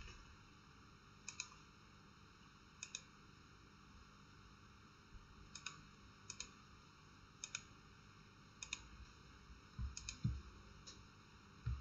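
Faint clicks of a computer mouse and keyboard, mostly in quick pairs spread a second or more apart, with a couple of low soft thumps about ten seconds in.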